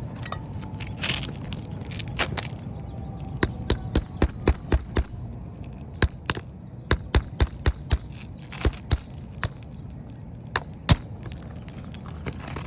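Hammer blows in quick runs of several sharp knocks, two to three a second, working stuck roofing nails out from under a shingle.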